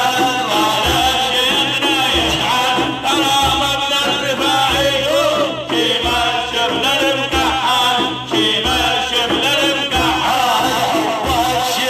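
Arabic madih (religious praise song) music: an ornamented, wavering melody over a low drum beat.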